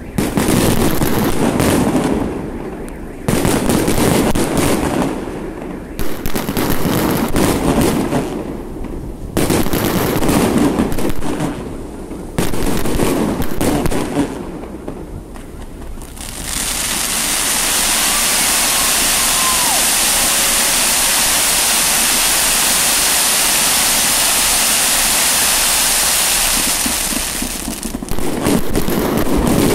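Fireworks display: a rapid series of bangs and crackles from exploding shells. About halfway through, the separate bangs give way to a steady, dense hiss for about ten seconds, and the bangs return near the end.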